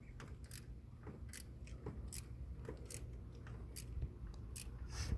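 Socket ratchet working a tight alternator bolt in short strokes: a sharp metallic click about every three-quarters of a second, over a faint low hum.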